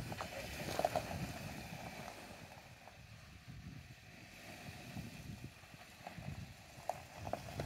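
Hyundai Santa Cruz pickup running at low speed: a low rumble with a few faint clicks of gravel under the tyres.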